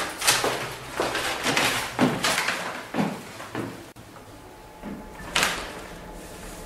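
A quick, irregular run of knocks and thuds for about three and a half seconds, then one sharper knock about five and a half seconds in.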